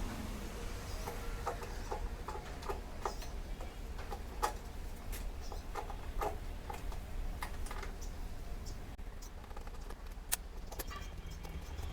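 Scattered light clicks and taps from tools and cable terminals being handled during electrical wiring work, over a steady low hum.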